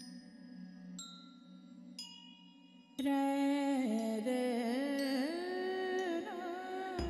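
Background music: a soft low drone with single chime-like notes ringing out about once a second, then about three seconds in a louder wordless melody with sliding pitch comes in over the drone.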